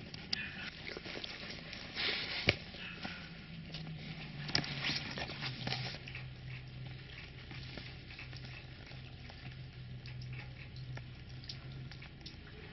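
Tibetan mastiff chewing and tearing at a piece of cardboard: irregular crackling and crunching, loudest about two seconds in and again around five seconds in.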